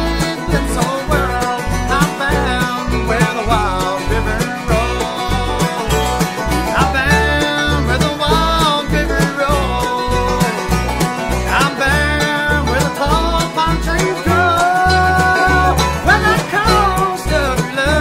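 Acoustic bluegrass band playing: banjo, mandolin, dobro and acoustic guitars over an upright bass plucking a steady beat, with melody lines that slide between notes.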